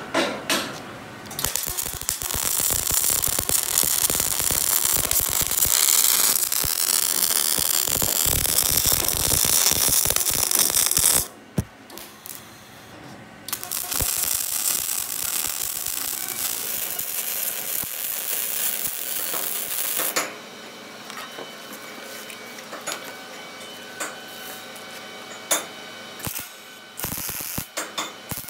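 Semi-automatic (MIG) welding arc crackling and spitting as steel floor plate is welded onto a truck bed frame. It comes in long runs, with a pause about eleven seconds in, then gives way to quieter stretches with scattered clicks. A few sharp hammer taps come at the very start.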